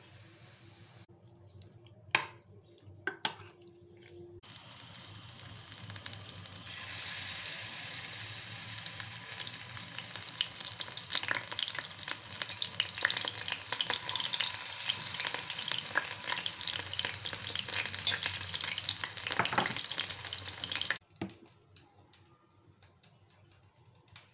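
Spoonfuls of corn batter sizzling and crackling in hot oil, building over a couple of seconds and cutting off suddenly near the end. A few sharp knocks come before it, about two to three seconds in.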